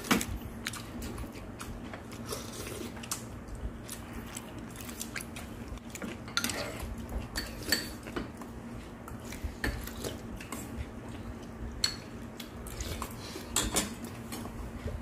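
Metal spoons clinking and scraping against a stainless steel soup bowl and a ceramic rice bowl as soup is scooped and spooned over rice, in scattered sharp clinks, over a steady low hum.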